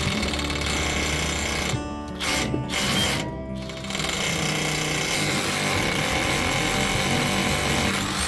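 Rotary hammer drill boring into a concrete-block wall with a masonry bit. It stops three times briefly, about two to four seconds in, then runs steadily. Background music plays underneath.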